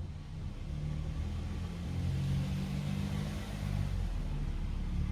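An engine running with a steady low hum, getting a little louder about a second in.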